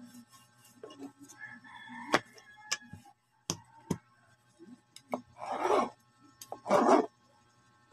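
A bowl used as a dough cutter, knocked and pressed down onto rolled empanada dough on a board. A few sharp clicks come first, then two rasping scrapes, each about half a second long, as the bowl is twisted through the dough.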